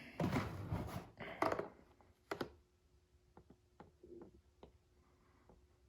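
Handling noise from the socket set and its case: rustling and light knocking for the first second and a half. A sharper click or knock follows at about two and a half seconds, then a few faint taps.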